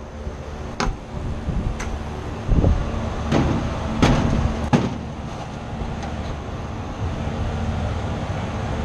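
A steady low machinery hum, with about six sharp knocks and clinks in the first five seconds as tools and parts are handled in and around an open HVAC unit's metal cabinet.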